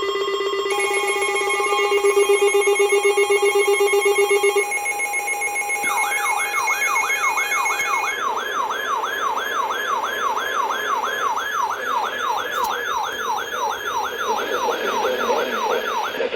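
Electronic alarm: a chord of steady tones for about four seconds, then a fast yelping siren tone that sweeps upward about two or three times a second.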